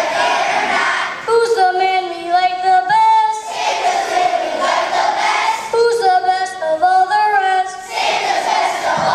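Children's choir singing, sung phrases alternating with fuller stretches of many voices together.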